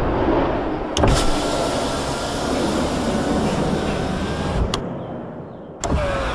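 Mechanical sound effects of a hatch opening: a steady whirring like an electric actuator motor over a rushing noise, with sharp clicks about a second in and near the end.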